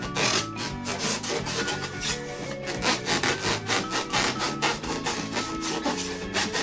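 Rubber balloons being rubbed and squeezed in quick repeated strokes, several a second, over background music with held notes.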